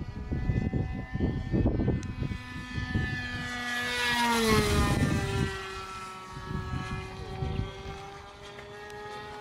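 Nitro (glow-fuel) engine of an RC model plane buzzing as the plane makes a pass: the buzz grows louder and its pitch drops about four to five seconds in as the plane goes by, then it carries on lower and fainter as the plane flies away. Gusts of wind rumble on the microphone.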